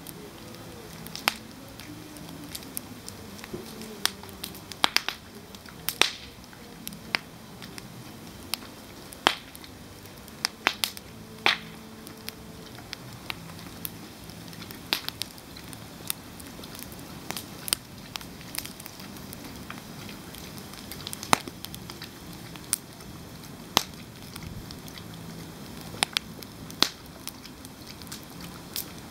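Wood campfire crackling, with sharp irregular pops every second or two over a steady low hiss.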